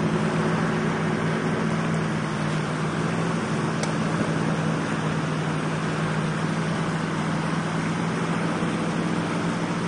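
A heavy vehicle's engine running steadily at an even pitch, a constant low hum over a noisy rumble.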